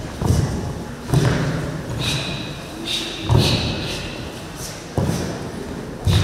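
Heavy thuds on a hall floor, about one a second and echoing, with a few short, high squeaks between them.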